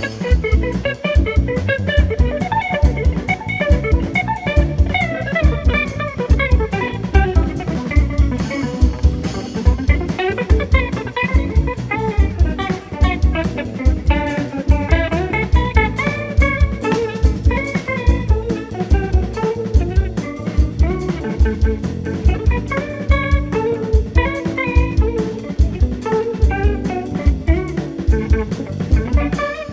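Instrumental jazz from a live quartet: electric guitar playing quick melodic lines over bass and a drum kit keeping a steady beat.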